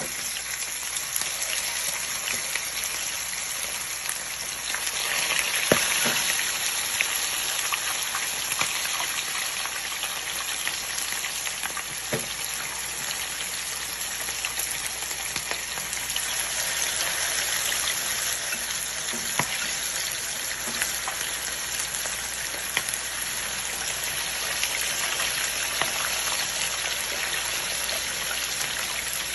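Chicken pieces sizzling and crackling in hot oil as they brown in a pan, with scattered sharp pops and a louder swell about five seconds in.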